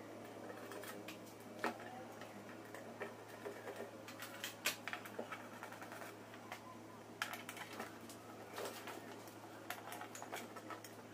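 Irregular light clicks and taps of hand tools and metal parts as the PCP compressor's motor is fastened on from underneath, with a faint steady hum beneath.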